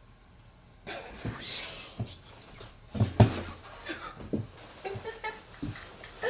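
A person falling off a chair: a sudden clatter of knocks and thuds starts about a second in as the chair and body hit the floor, loudest about three seconds in, followed by scattered smaller knocks and rustling.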